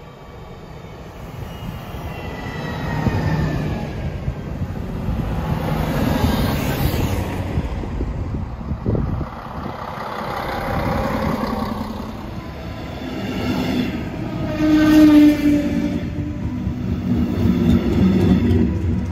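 Diesel railcar approaching and passing close by, its engine and wheels on the rails growing steadily louder over the first few seconds. Then a train of red double-deck coaches running past, with a brief pitched tone, the loudest moment, about fifteen seconds in.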